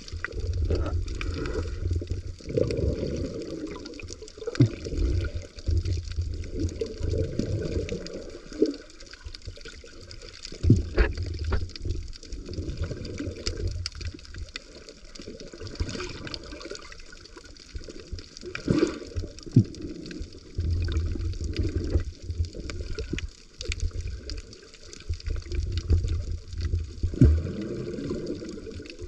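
Water sloshing and bubbling in surges, heard through a camera underwater, with sharp clicks scattered through it.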